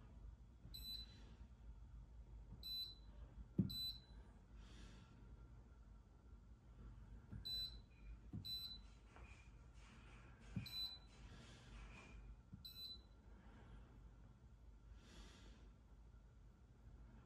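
Short, high key-press beeps from the touchscreen of an Infracont SGRAIN near-infrared grain analyser as its screen is tapped: seven single beeps at uneven intervals, along with a few soft knocks.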